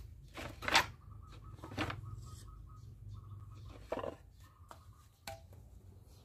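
Wooden knocks and clatter as a log is lifted off a pile of wood offcuts, four short knocks in all, the loudest about a second in.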